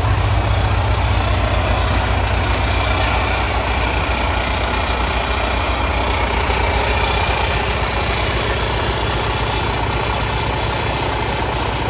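Volvo D13 inline-six diesel engine of a 2011 Volvo semi tractor idling steadily, a low even rumble.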